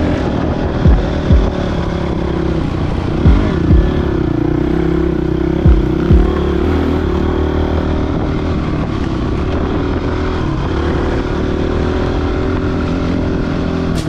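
Dirt bike engine running steadily while riding a trail. In the first half, low thumps come in pairs about every two and a half seconds.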